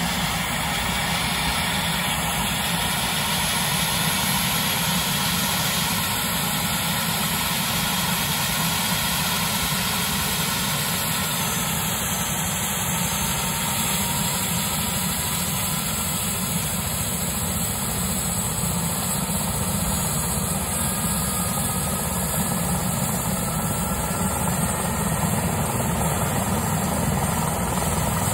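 Air-ambulance helicopter running on the ground, its turbine engines and main rotor turning steadily before takeoff.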